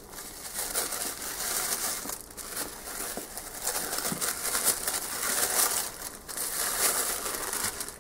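Thin white tissue paper crinkling and rustling as hands unwrap a boxed card deck from it: a continuous run of crackles, with a few brief dips.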